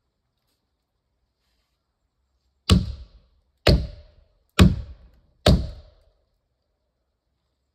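Four heavy blows of a tool striking wood, about one a second, each with a short ring after it.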